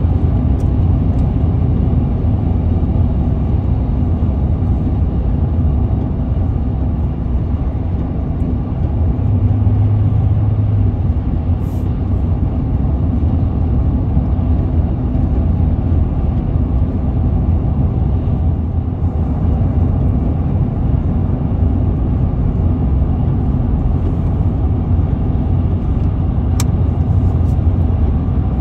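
Car being driven: a steady low rumble of road and engine noise. A brief low hum swells about ten seconds in, and there is a single sharp click near the end.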